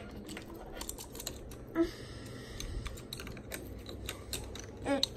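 Glittery slime being handled, giving a run of small irregular clicks and pops.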